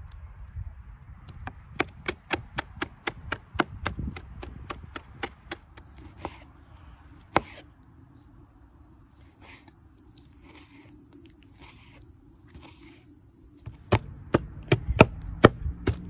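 Kitchen knife chopping walnuts on a cutting board: a run of quick knocks, about three or four a second, that stops for several seconds and starts again near the end.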